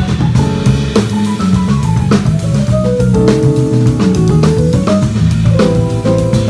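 Live band playing a funk-jazz groove: drum kit with kick and snare hits, electric bass moving between notes, and a melody line above.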